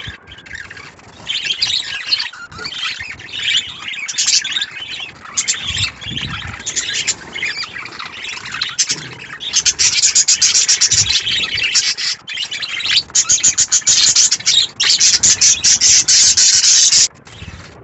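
Flock of budgerigars chattering and chirping, a dense run of quick, high chirps that turns louder and busier a little past halfway.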